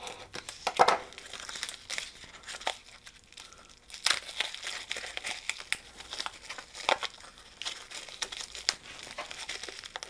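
Clear plastic wrapping around a stack of printed circuit boards crinkling and crackling irregularly as hands pull and tear it open, with a few sharper snaps.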